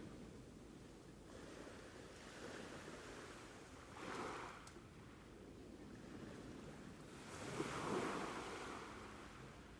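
Ocean waves breaking and washing on a shore, a soft steady wash of surf with two swells, a small one about four seconds in and a louder one near eight seconds.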